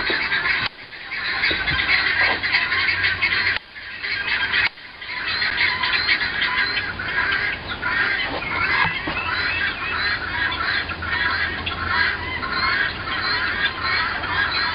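A flock of guinea fowl calling loudly and without let-up, many harsh calls overlapping into a dense chatter. It breaks off briefly about a second in and again around four seconds in.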